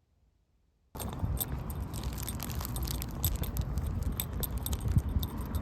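Near silence, then about a second in a sudden start of jingling metallic clinks over a low rumble of handling noise.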